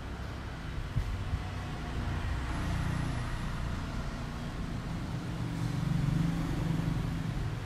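Road traffic passing, a steady low rumble that swells twice as vehicles go by, with two light knocks about a second in.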